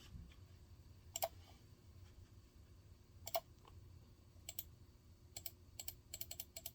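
Faint, sharp clicks at irregular intervals, a few at first and then a quick irregular run near the end, over a steady low hum.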